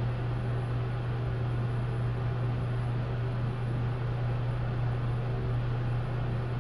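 Hyundai WBST1 traction elevator car travelling downward: a steady hum with an even hiss of the ride, unchanging throughout.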